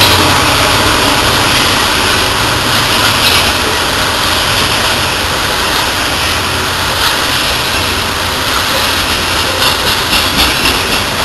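Coal hopper cars of a unit freight train rolling past close by: a steady loud rumble and rush of steel wheels on rail, with a quick run of sharp clicks near the end.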